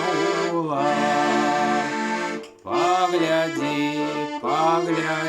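Tula 301M garmon (Russian button accordion) in F major playing sustained chords, with a voice singing the last word of a verse at the start. The chords break off briefly about two and a half seconds in, then resume.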